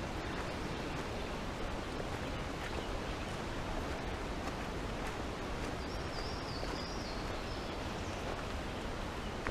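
Steady outdoor background noise, even across the whole range, with a short high warbling bird call about six seconds in.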